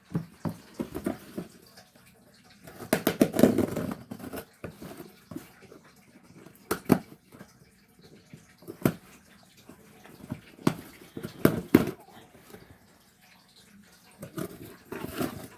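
A package being opened by hand: crinkling and rustling of packaging, with a scatter of sharp clicks and knocks.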